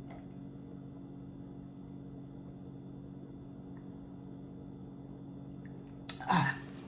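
Steady low electrical hum made of several even tones. About six seconds in, one short, louder sound breaks in briefly.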